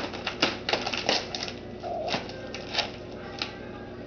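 Plastic cat-food bag crackling and snapping in quick sharp clicks as cats bite and claw at it to tear it open. The clicks are busiest in the first second or so and come more sparsely after that.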